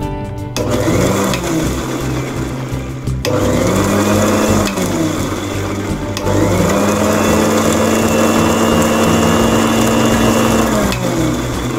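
Electric mixer grinder run in three bursts: about two and a half seconds, then a shorter one, then a longer run of about four and a half seconds. Each time the motor whine rises as it spins up and falls away as it stops.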